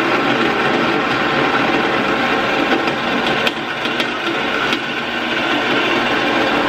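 Vertical band saw running and cutting through a steel fitting held in locking pliers: a steady sawing noise, with a few sharp ticks and a slight drop in level around the middle.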